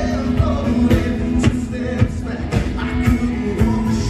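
Live band playing a country-style song through a concert PA: a singer over drums, bass and acoustic guitar, with a steady drum beat.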